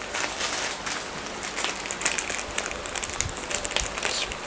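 Crinkling and light clicking of small plastic bags of PC case accessories, screws and zip ties, being handled and sorted.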